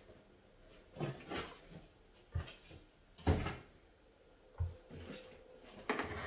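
Cardboard box and packaging being handled: about five dull knocks and scrapes, a second or so apart, the loudest about a third of the way in.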